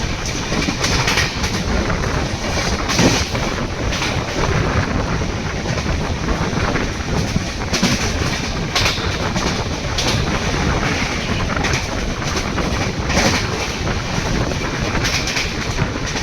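Coaches of the 11019 Konark Express rushing past at speed, a steady rush of noise broken by irregular sharp clacks as the wheels cross rail joints.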